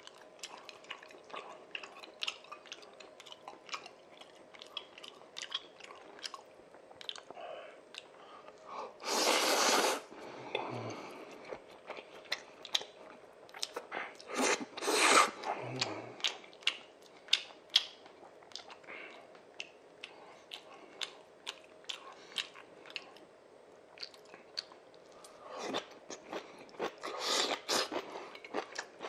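A person eating Chapagetti black-bean instant noodles close to the microphone: wet chewing and lip smacks as a constant run of short clicks, with three louder, noisier slurps of noodles about nine seconds in, around fifteen seconds, and near the end.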